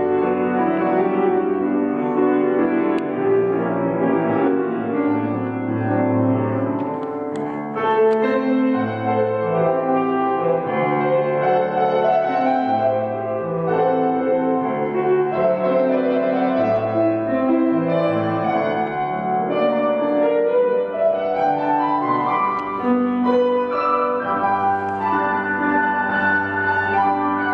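Grand piano playing music, with a quick rising run of notes about three-quarters of the way through.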